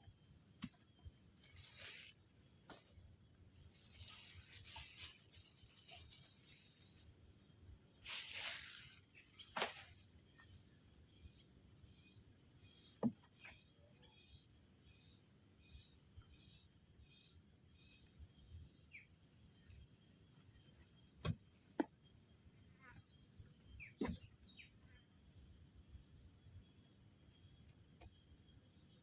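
Quiet outdoor ambience: a steady high-pitched insect drone with scattered faint bird chirps. It is broken by a few sharp clicks and knocks, the loudest sounds, twice close together near the end.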